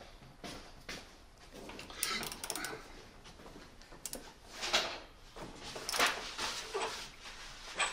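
A socket wrench working a motorcycle's steering stem nut, with scattered metallic clicks and scrapes of tool handling; the nut is being pre-tightened on newly fitted tapered roller steering head bearings.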